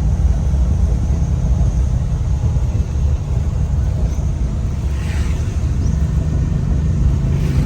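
Car running along a road, heard from inside the cabin: a steady low rumble of engine and tyre noise.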